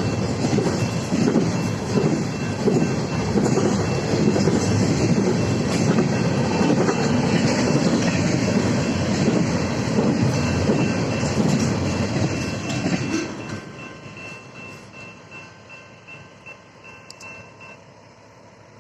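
BNSF intermodal freight train's cars rolling through the crossing, wheels clattering rhythmically over the rails, until the last car clears about two-thirds of the way in and the noise drops away. The crossing signal's bell keeps ringing, then stops near the end.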